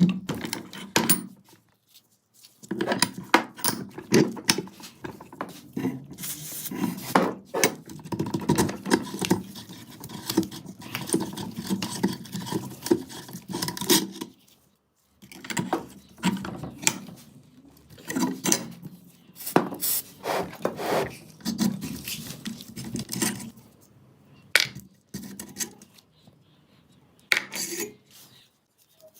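Metal gun parts being worked by hand: scraping and rubbing strokes with clinks and knocks, in uneven runs broken by a few short pauses.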